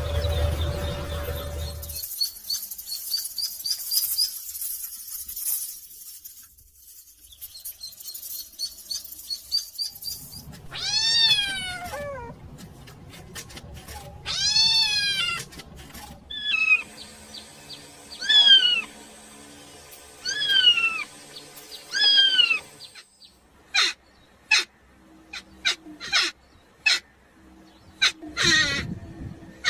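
A kitten meowing again and again: a run of high meows that rise and fall in pitch, each under a second long, starting about a third of the way in.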